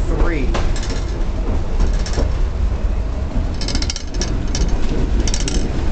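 1923 J.G. Brill streetcar running along its track: a steady deep rumble, with short bursts of rattling and clicking roughly once a second.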